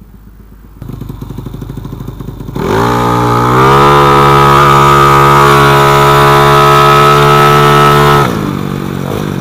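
Two-stroke Vespa Sprint engine with a 68 mm big-bore piston and carburettor, running with a fast low pulse, then revving up hard at close to three seconds in as the scooter launches flat out. It climbs quickly in pitch, holds a loud, steady high-revving note for about five seconds, then drops away sharply as the throttle is shut.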